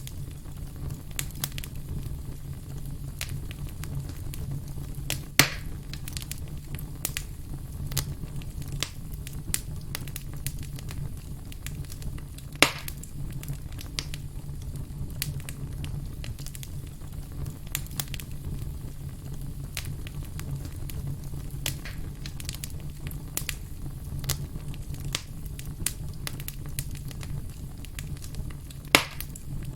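Wood campfire crackling steadily over a low rumble, with many small clicks and three sharp pops: one about five seconds in, one about twelve seconds in, and one near the end.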